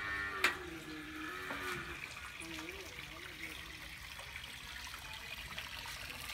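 Water trickling and splashing into a bucket as a cow drinks from it, with a sharp click about half a second in.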